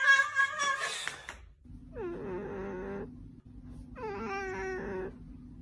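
A cat gives two long, drawn-out meows, each falling in pitch, over a steady low hum: a cat calling for food at its bowls. A louder, higher-pitched sound ends about a second in, before the meows.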